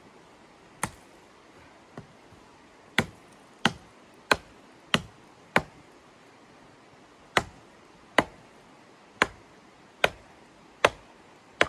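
Hatchet chopping into a thin wooden pole: about a dozen sharp blows. Two come singly, then a run of five quick ones, a short pause, and six more at a slightly slower pace.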